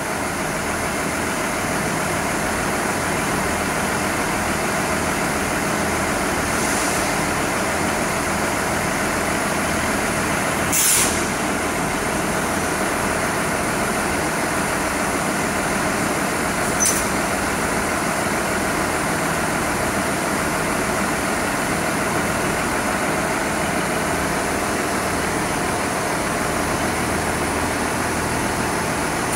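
Underfloor diesel engine of a Class 158 diesel multiple unit idling steadily. Two short hisses cut in, the louder about a third of the way through and a sharper one just past the middle.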